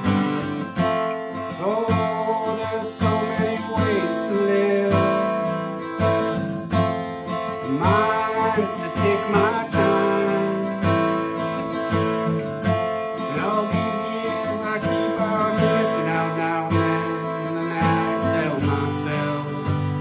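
Steel-string acoustic guitar, with a home-built bird's-eye maple neck, strummed steadily in chords through an instrumental passage of a song.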